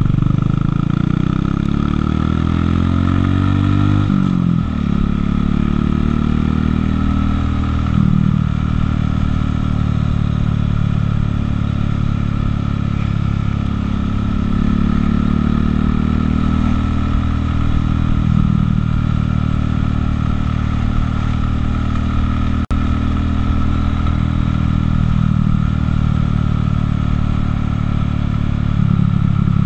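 Buell motorcycle engine heard from the rider's seat, rising in pitch as it accelerates for about four seconds. It drops abruptly as it shifts up, then runs at a steady cruise with small rises and falls in speed.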